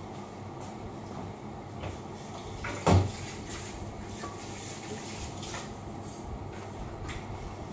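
Kitchen work at the sink and counter with a metal pot: one dull thud about three seconds in and a few light knocks, over a steady background hum.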